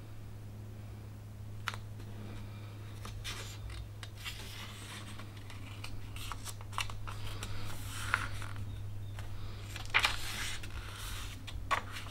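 Pages of a paperback guidebook being turned and handled: soft paper rustles and flicks, with a couple of sharper page snaps near the end, over a steady low hum.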